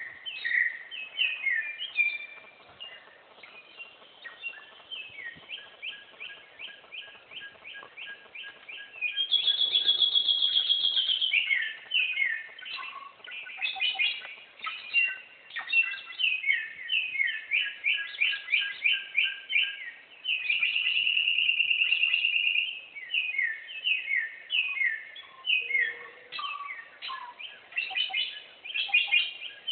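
Bare-throated whistler (garugiwa) singing: runs of quick, repeated high whistled notes, with two louder rapid trills, one about nine seconds in and one about twenty seconds in.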